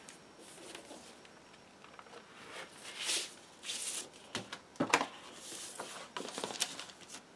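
Plastic protective sleeve rustling and a cardboard LP jacket and paper inner sleeve sliding as a vinyl album is handled and unsleeved, in short scattered rustles, with a couple of light knocks near the middle, the second the loudest.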